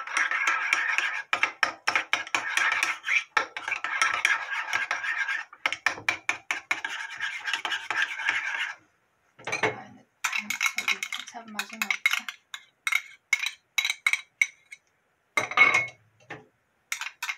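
Metal spoon stirring a thick mayonnaise-and-ketchup dressing in a ceramic bowl: quick, continuous scraping and clinking against the bowl. About nine seconds in the brisk stirring stops, and scattered scrapes and taps of the spoon follow, the loudest one near the end.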